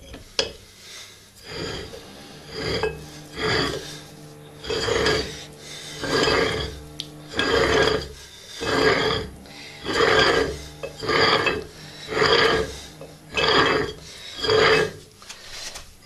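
Cast-iron adjustable kettlebell being screwed back together by hand, its handle half twisted onto the threaded bolt: a metal-on-metal rasp with each twist, about a dozen in an even rhythm of roughly one a second.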